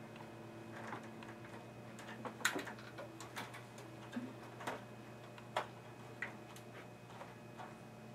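Irregular clicks and small knocks of cable connectors and plastic clips being handled and pulled loose inside an open desktop computer case, the sharpest about two and a half seconds in and again near five and a half seconds, over a low steady hum.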